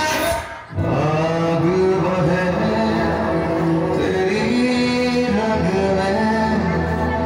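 Dance music: a song with a male voice singing long, held notes over an instrumental backing. The music drops out briefly just under a second in, and a new track starts.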